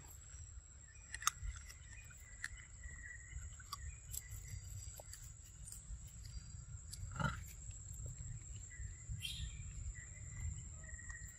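Forest ambience: a steady high-pitched insect drone over a low rumble, with scattered small clicks and one sharper crack about seven seconds in.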